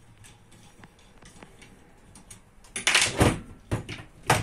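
Clicks and clatter of an airsoft gas blowback rifle's parts being handled during disassembly, with a loud run of knocks about three seconds in and one sharp knock near the end.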